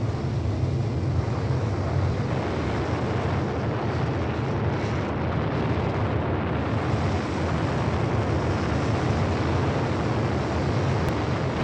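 Rocket thrusters of a Mars lander's descent stage firing steadily: a continuous rushing noise over a heavy low rumble, as animated with sound effects.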